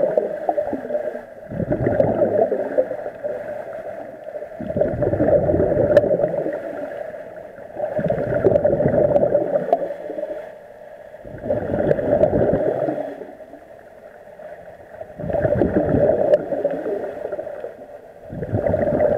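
Scuba diver breathing through a regulator underwater: a rushing gurgle of exhaled bubbles about every three to four seconds, with quieter gaps in between as the diver breathes in.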